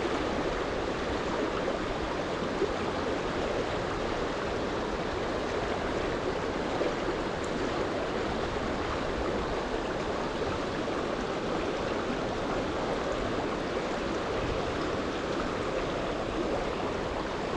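Steady rush of a shallow, fast-flowing river running over stones.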